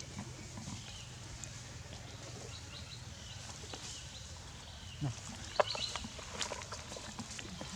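Monkeys moving about outdoors: scattered faint taps and rustles, with a brief cluster of short high squeaks and a sharp tap about five and a half seconds in.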